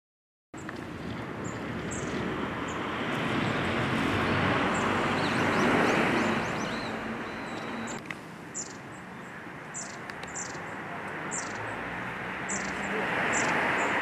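Long-tailed tits calling: short, thin, very high notes, a few at first and coming thick and fast in the second half. Under them runs a louder rush of passing traffic that swells and fades twice.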